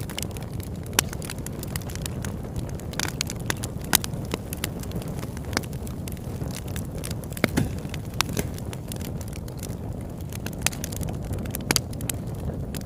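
Campfire burning with a steady low rumble, crackling and giving irregular sharp pops, a few louder ones scattered through.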